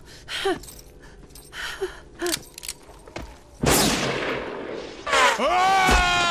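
A single loud revolver shot about three and a half seconds in, ringing out and fading over a second or so, after a few short gasping sounds. Near the end, orchestral film music swells in with rising and falling held notes.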